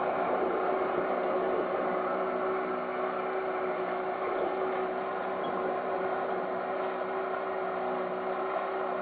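Archway Comet speedboat's engine running steadily with the boat under way, holding an even pitch throughout.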